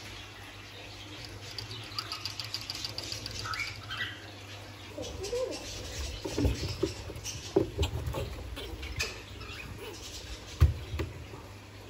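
Chinchillas moving about their cage on hay bedding: a fast run of light ticks for a couple of seconds, then scuffling, light thumps and clicks, with a sharp knock near the end.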